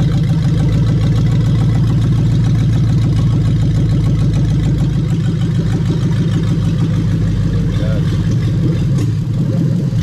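Toyota 1UZ-FE VVT-i 4.0-litre V8 idling steadily with its fuel pump disconnected, running on the fuel left in the lines and rails.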